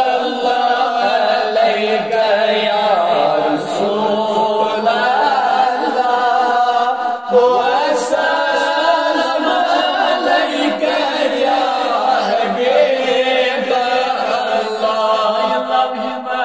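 A man's voice chanting a darood, an Islamic salutation on the Prophet, in long melodic held notes that bend and glide between pitches, over a steady low drone.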